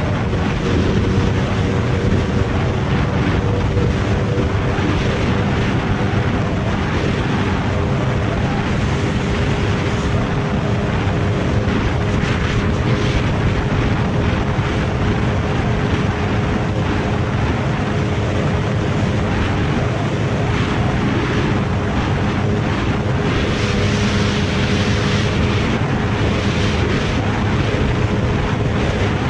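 Suzuki motorcycle engine held at high, steady revs in sixth gear at near top speed, under heavy rushing wind noise on the microphone.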